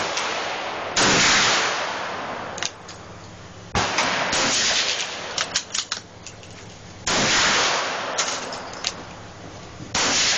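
Rossi Circuit Judge revolving carbine firing 3-inch .410 shotgun slugs: a series of loud shots a few seconds apart, each trailing off in a long echo. Quieter sharp cracks come in between.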